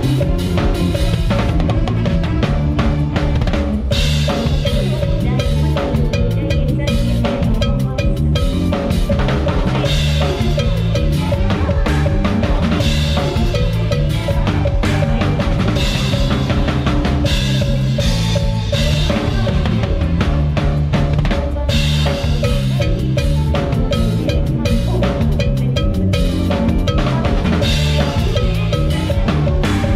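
Acoustic drum kit played live in a steady, driving beat, with kick drum, snare and cymbal strikes, over the rest of the band's music.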